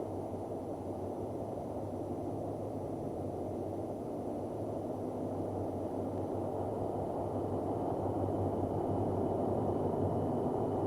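Steady low rumbling noise with a faint low hum, an ambient 'space sound' drone presented as the sound of Saturn; it grows slightly louder toward the end.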